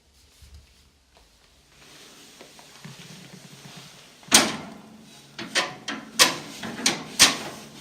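A Chimella flue plug being worked into a round flue, sliding and scraping against it. From about four seconds in come five sharp knocks and clacks as it is handled into place.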